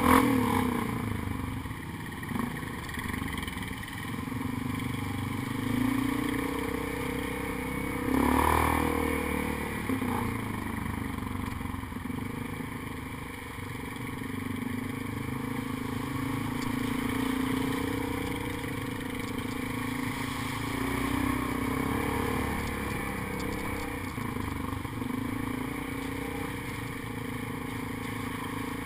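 ATV engine running along a rough dirt trail, its pitch rising and falling with the throttle, with clatter from the machine over the ruts and a louder bump about eight seconds in.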